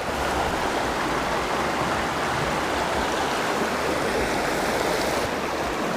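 Mountain stream water running steadily, an even, unbroken noise of flowing water.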